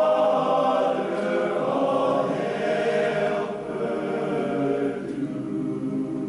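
Choral music: a choir singing slow, held chords.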